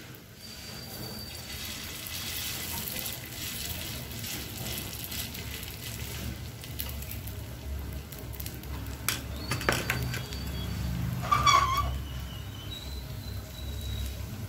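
Prawn vadai patties shallow-frying in oil on a flat tawa: a steady sizzle. A few sharp clicks come about nine to ten seconds in, and a short high squeak at about eleven and a half seconds is the loudest moment.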